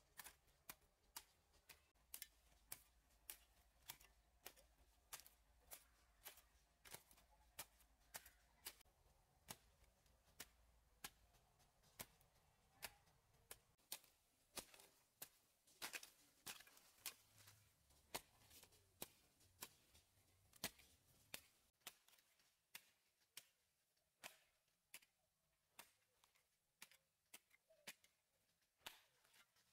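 Garden hoe chopping into loose soil, a short sharp stroke about twice a second, quiet overall.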